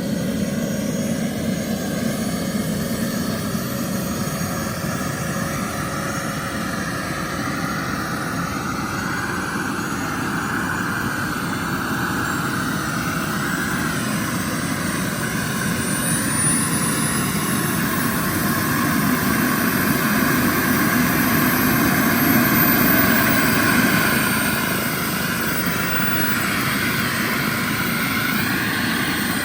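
Jetcat PHT-3 XL model turbine powering a radio-controlled Bell 212 scale helicopter, running with a steady rush. A thin high whine climbs in pitch in the middle, and the sound grows louder for several seconds past the middle before settling back.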